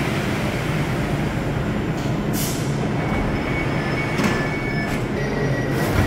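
Paris Métro MP14 CC rubber-tyred train coming to a stop at the platform, with a steady low hum and rumble. A few short hisses of air and a thin high squeal come in the second half.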